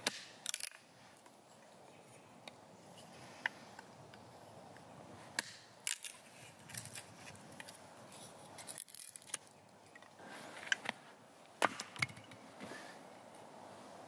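Hatchet chopping and splitting wood into thin kindling on a stump chopping block: a handful of sharp chops and cracks, a few seconds apart.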